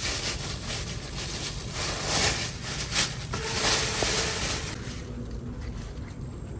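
Rustling of vine leaves and a plastic bag as produce is picked by hand, in a few louder bursts about two to four seconds in, dying down near the end.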